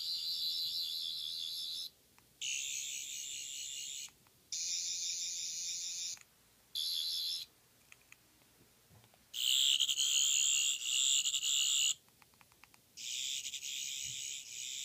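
Doctor Who sonic screwdriver remotes playing their high, warbling electronic sound effect in six bursts with short gaps between them. The burst just before the last is the loudest. A few faint switch clicks come in the gaps.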